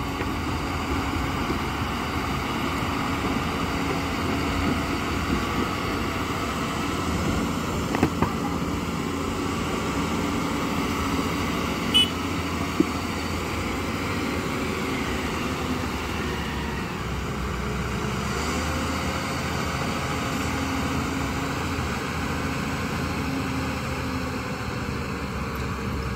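Diesel engine of heavy earthmoving machinery running steadily, with a few short sharp knocks, the clearest about eight and twelve seconds in.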